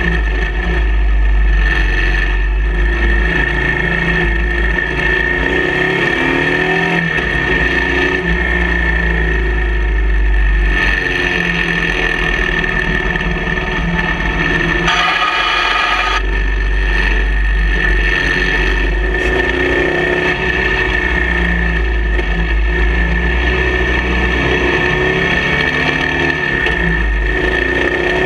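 Motorcycle engine running on the move, its pitch rising and falling with the throttle through a run of curves, under a heavy low rumble of wind on the microphone.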